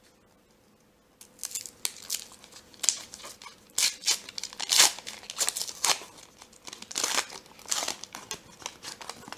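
Foil wrapper of a 1990-91 Upper Deck hockey card pack being crinkled and torn open by hand, in irregular crackling bursts that start about a second in.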